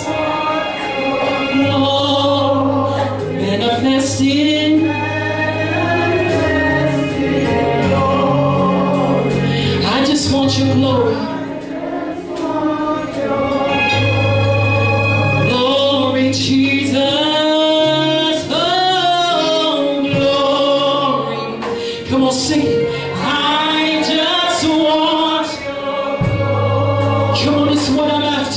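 Gospel worship music: voices singing a slow song together over instrumental accompaniment with sustained bass notes.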